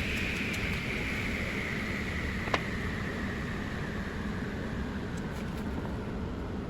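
A steady machine noise with a hiss that slowly falls in pitch, and one sharp click about two and a half seconds in.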